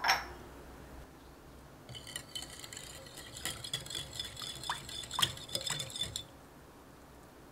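A wire balloon whisk stirring yeast and sugar into water in a glass bowl, its metal wires clinking rapidly against the glass for about four seconds before stopping. A single sharp knock sounds at the very start.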